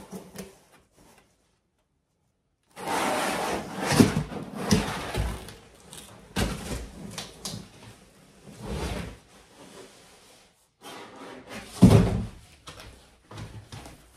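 Cardboard box and foam packing scraping and rustling as a boxed desktop tower is lifted out, with several knocks and one heavy thump near the end.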